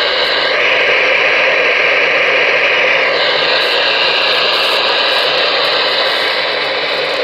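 Galaxy DX-98VHP ten-meter radio receiving on AM, its speaker giving a steady, loud rush of static and band noise. The hiss changes in tone about half a second in and again around three seconds in.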